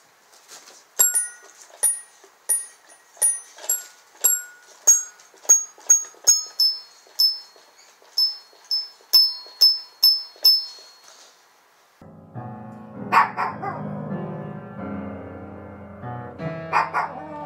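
A kitten pawing the metal bars of a toy xylophone: about twenty high, ringing notes, one or two a second, in an uneven rhythm. About twelve seconds in, upright piano notes played by a cat take over, with a small dog barking along.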